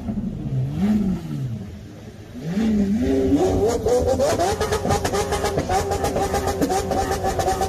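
Lamborghini supercar engine being revved while parked: a quick blip up and back down about a second in, then a climb in steps to a high rev that it holds steadily.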